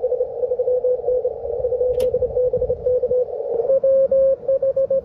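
Morse code (CW) on the 20-metre band from an amateur radio transceiver's speaker: a keyed mid-pitched tone over receiver hiss. About three and a half seconds in, it gives way to a louder, cleaner keyed tone with no hiss behind it.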